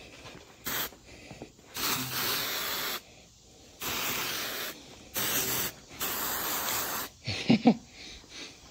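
Aerosol spray-paint can spraying in five bursts with short pauses between: the first very brief, the others about a second each.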